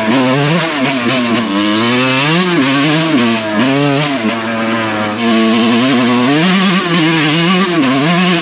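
2001 Suzuki RM125 two-stroke engine being ridden, revving up and down repeatedly with the throttle. The silencer has almost no packing left, so the exhaust sounds like a hollow tin can.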